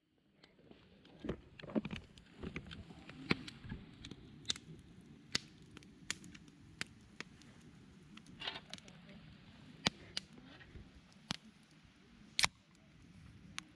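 Wood fire crackling, with sharp pops at irregular moments over a low steady rush of burning.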